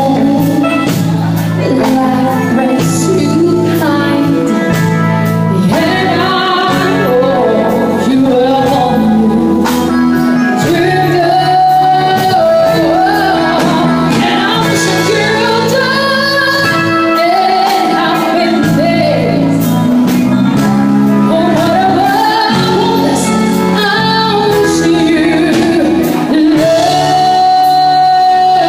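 A woman singing over instrumental accompaniment, with long held notes about halfway through and near the end.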